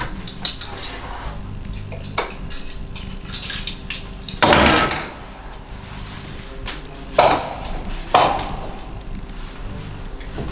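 A few short clinks, knocks and rattles of small hard objects being handled, the loudest about halfway through, over a low steady room hum.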